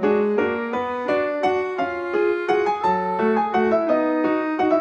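Background music: a melody of quick, evenly paced notes.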